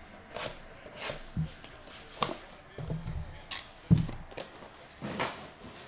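Foil trading-card pack wrappers being torn open and cards handled: irregular short crinkles and rustles with a few soft thumps, the loudest about four seconds in.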